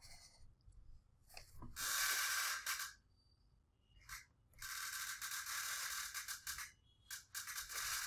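Scratchy rubbing of a stylus dragged across a drawing tablet, in three stretches of one to two seconds each, with a few light clicks between them.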